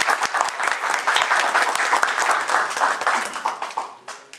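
Audience applauding, loud and dense, dying away near the end.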